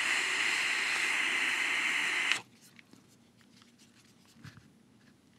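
Airflow hiss of a dotmod dotAIO Lite vape during a long draw, a steady loud hiss with a faint whistle in it that stops abruptly about two and a half seconds in. The noise is the loud airflow that the reviewer faults this device for.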